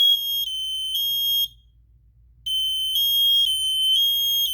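USI 1510SB hardwired smoke alarm sounding its horn on test: loud high-pitched beeps of about half a second in a group of three, then a pause of about a second, then the beeping starts again.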